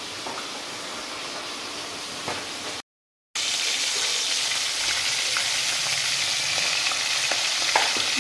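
Hot oil sizzling as small whole fish fry in a steel wok, an even hiss with a few faint crackles. About three seconds in it cuts out briefly, then the sizzling comes back louder.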